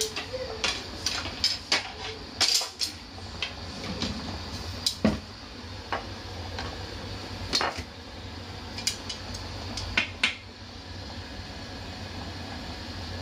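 Scattered light clicks, clinks and knocks of kitchenware, with one heavier thump about five seconds in, over a steady low hum.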